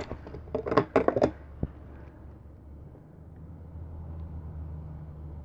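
A single sharp click about a second and a half in, then a faint, low, steady room hum.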